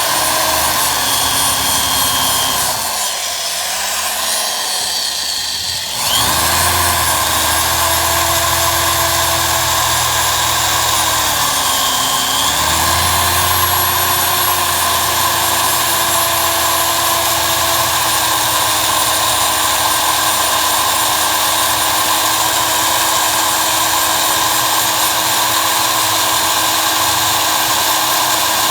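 Electric drill boring small holes through the steel frame rail and floor pan, running continuously. Its motor speed dips twice, a few seconds in and again about twelve seconds in, then holds steady.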